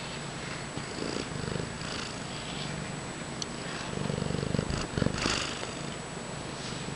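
Siamese cat purring right against the microphone, a low continuous rumble that swells a little around the middle. A brief rustle of fur against the microphone comes about five seconds in.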